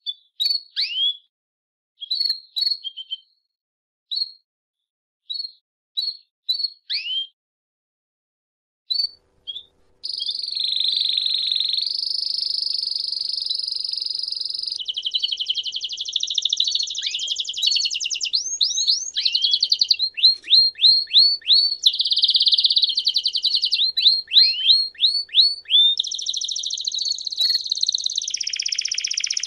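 Domestic canary singing. It starts with a string of separate short chirps and downward-sliding notes with silent gaps between them. About a third of the way in it breaks into continuous song: rapid rolling trills that change to a new trill every few seconds, broken by quick downward-sliding whistles.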